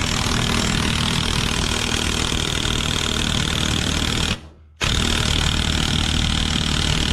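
Brushed Porter-Cable impact wrench hammering continuously on a bolt that has run out of thread, driving it as tight as it will go. The trigger is let off for about half a second a little past the middle, then the wrench hammers again.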